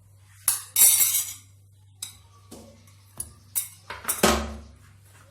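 Irregular clattering and rattling as cucumber pieces are tipped into a pan of vinegar: about six sharp hits with a brief ring after each. The loudest come about a second in and again after four seconds.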